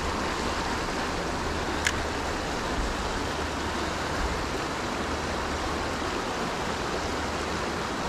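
Creek water running steadily over shallow riffles and rocks, with a single sharp click about two seconds in.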